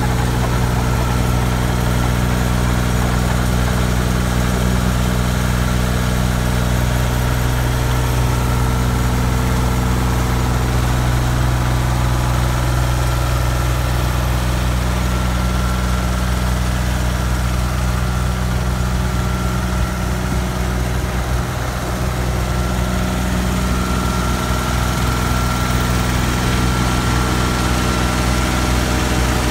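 Morbark D52SP stump grinder's 44 hp Perkins diesel engine running at a steady speed.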